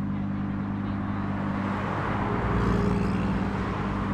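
Car engines idling steadily, with one engine swelling louder about two and a half seconds in, then easing off again.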